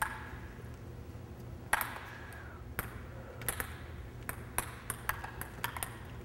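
Table tennis balls clicking off paddles and bouncing on a wooden gym floor in an off-table backspin drill: irregular sharp ticks, the loudest near the start and about two seconds in, ringing briefly in the hall, over a low steady hum.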